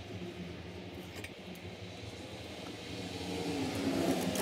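A motor vehicle's engine, getting louder from about three seconds in with a wavering, gliding pitch, over a steady low hum.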